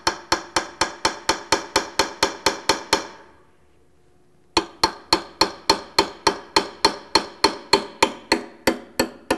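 A small ball peen hammer rapidly striking a skinny cold chisel against the front end plate of a rotary vane vacuum pump, about four to five blows a second, each with a short metallic ring, to drive the plate off. The hammering stops for about a second and a half midway, then resumes at the same pace.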